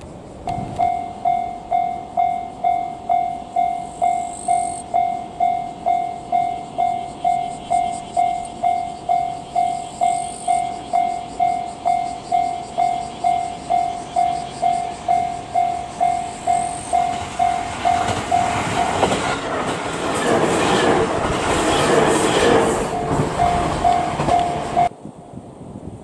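Japanese railway level-crossing warning bell ringing at about two strokes a second. From about 18 seconds in, a JR Central 313-series electric train passes with loud wheel and rail noise. The bell stops abruptly near the end.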